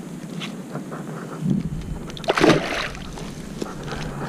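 Water splashing at the edge of the water as a released peacock bass kicks free and swims off, with one sharper splash a little over two seconds in.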